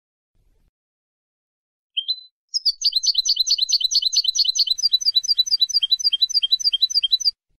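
A small songbird singing: one short rising note, then a rapid, even trill of repeated downward-sweeping notes lasting nearly five seconds.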